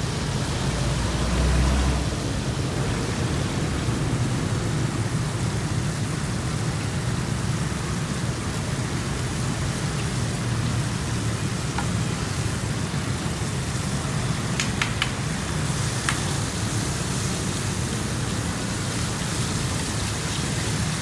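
Steady hiss of bananas deep-frying in hot oil, over a low hum, with a few light clicks about three-quarters of the way through.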